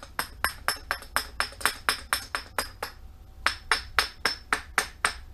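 Small metal hammer tapping quickly around the edge of a steel differential pinion flange through a paper template, about five light taps a second, each with a short metallic ring, pausing briefly about three seconds in. The taps press the flange collar's outline into the paper as a trace line for cutting.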